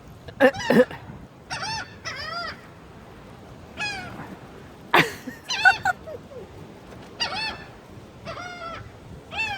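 A flock of birds calling again and again, about a dozen short squawks that rise and fall in pitch, as they crowd in to be fed bread. A sharp click sounds about five seconds in.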